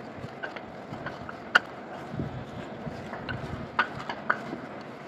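Wooden pestle pounding a mash of fried taki fish and spices in a wooden mortar: irregular knocks of wood on wood over dull soft thuds, the sharpest knock a little past one and a half seconds in.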